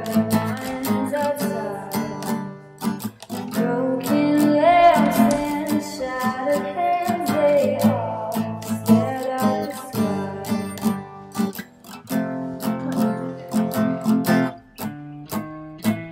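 Background music: a track with plucked and strummed acoustic guitar carrying a gliding melody.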